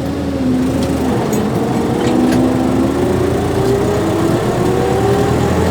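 Tractor engine working under load while pulling a planter up a slope, its pitch rising steadily as the revs climb.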